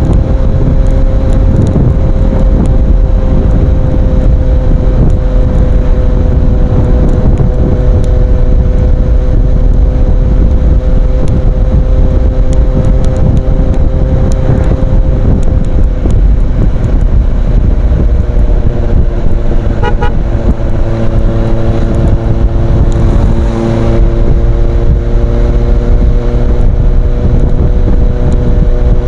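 Kawasaki Z800's inline-four engine running at a steady speed through an Ixil aftermarket exhaust. Its note shifts a little lower about two-thirds of the way through, then holds steady again.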